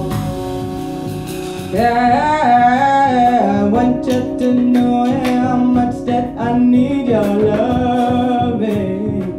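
Live vocal jazz: a woman sings over acoustic and electric guitar, double bass and drums. Her voice comes in louder about two seconds in and holds long notes.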